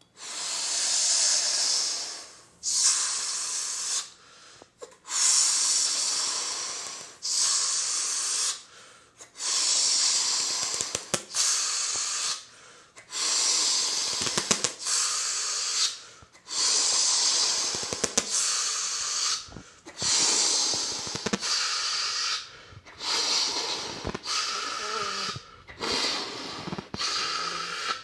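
Repeated bursts of rushing, hissing air close to the microphone, each lasting a second or two, about one every two seconds.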